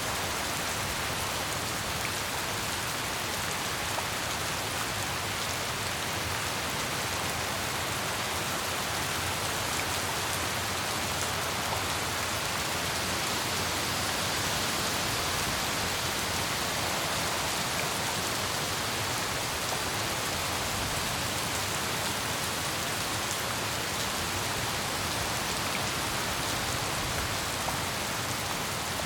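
Steady heavy rain falling, an even hiss with faint scattered drop ticks.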